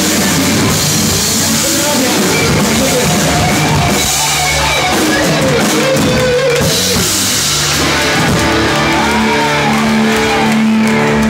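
Live rock band playing loud: electric guitar and drum kit pounding through the end of a song, settling into held notes near the end.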